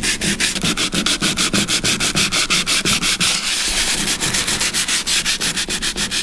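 100-grit sandpaper on a hand sanding block rubbing rapidly back and forth over cured steel epoxy filler and bare metal, in quick, even strokes. The epoxy patch plugging an old spoiler hole is being sanded down smooth.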